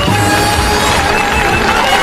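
A large crowd cheering and shouting, a loud continuous roar that cuts in suddenly just before the start, with a few held high tones running over it.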